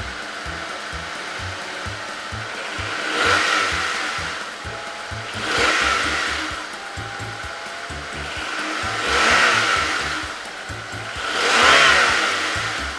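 Background music with a steady low beat, overlaid by four swelling whooshes that rise and fade about every two and a half to three seconds.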